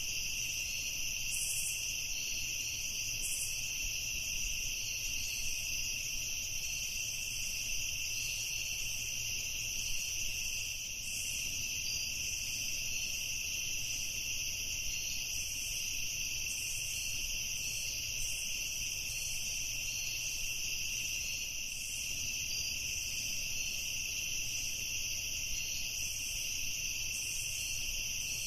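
Crickets chirring in a steady chorus: a continuous high-pitched drone that does not let up or change.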